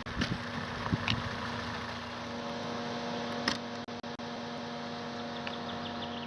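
Steady engine and road hum inside a car driving on a dirt road, with a few faint clicks.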